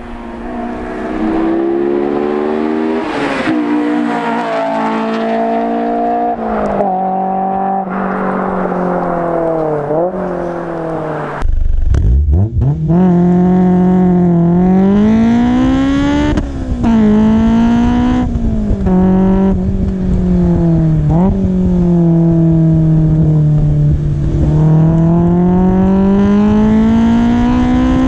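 Honda S2000's four-cylinder engine through a Tanabe Medallion Touring catback exhaust and Berk test pipe, pulling hard: the revs climb and fall back sharply again and again as it shifts gears. About eleven seconds in it cuts to a second, louder run doing the same.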